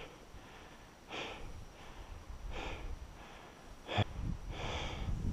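A hill walker breathing hard while climbing, one heavy breath about every second and a half. A sharp knock comes about four seconds in, followed by low wind rumble on the microphone.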